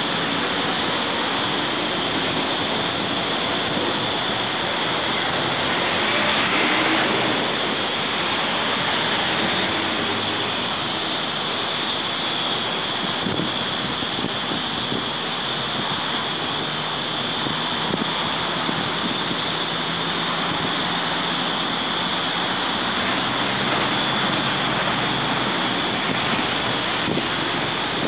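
Steady noise of road traffic, swelling a little about six to seven seconds in as a vehicle goes by.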